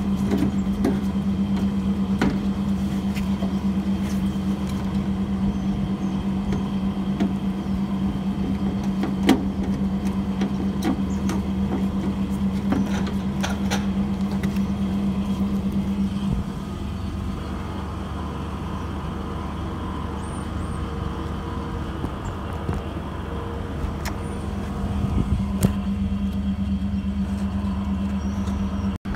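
A steady machine hum with a low rumble, broken by scattered clicks and knocks. The hum falls away a little past halfway and comes back near the end.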